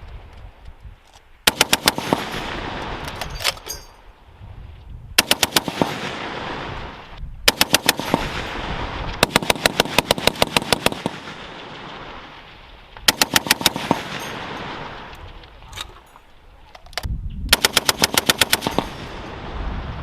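M2 .50 caliber heavy machine gun firing short bursts of automatic fire, about eight rounds a second, each burst lasting a second or so, with a couple of single shots between. The reports echo and die away between bursts.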